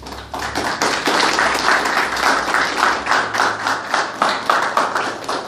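A small audience applauding, many hands clapping together. The clapping starts about half a second in and begins to thin out near the end.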